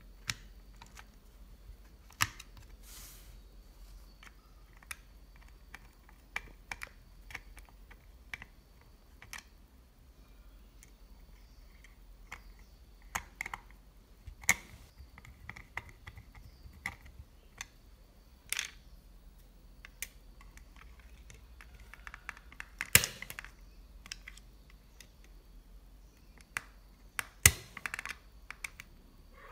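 Irregular small clicks and taps of hard plastic as an alarm clock's plastic housing and movement are handled and pressed together, with two louder knocks in the last third.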